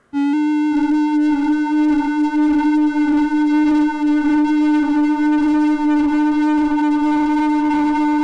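Electronic synthesizer holding a single steady note, which comes in abruptly and sustains without changing pitch.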